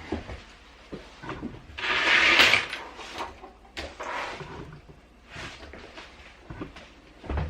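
Handling noises on a work desk: a few scattered clicks and knocks, with a brief rustling scrape about two seconds in.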